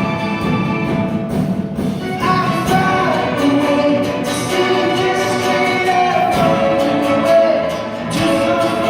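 Live performance of a pop-rock song: a singer's voice over a high school string orchestra accompaniment.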